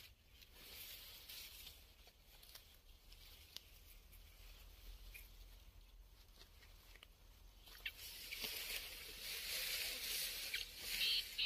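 Faint rustling and patter in the grass, swelling in the last few seconds, then short high bird calls in quick pairs near the end.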